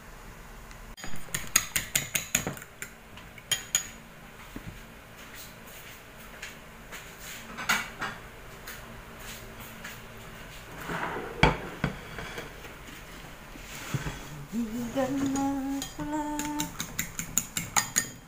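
Fork beating raw egg in a ceramic bowl: quick runs of clinking taps near the start and again near the end, with scattered knocks of dishes and cutlery between them and one louder knock about halfway through.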